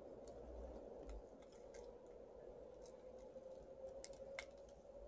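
Crisp raw leafy-vegetable leaves being torn apart by hand, giving a few sharp snapping crackles, the loudest about four seconds in, over a faint steady hum.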